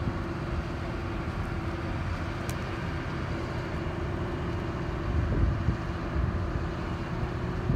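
A crane's diesel engine running steadily, a low drone with a faint steady hum over it.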